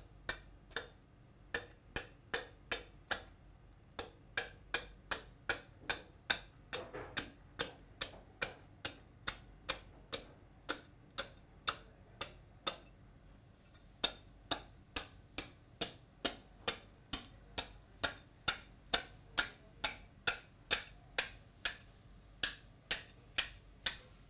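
Cleaver chopping down the backbone of a hanging suckling lamb carcass to split it in half: a steady series of sharp chops, about two or three a second, with a short pause about halfway through.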